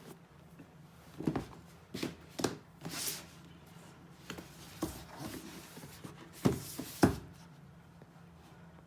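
A pair of sneakers and their packaging being handled: scattered short knocks, taps and rustles, the sharpest two about six and a half and seven seconds in.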